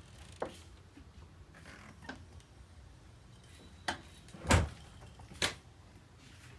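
A door pushed by the wind and pulled closed by a door closer, shutting with one loud thud about two-thirds of the way through, with a few lighter knocks before and after.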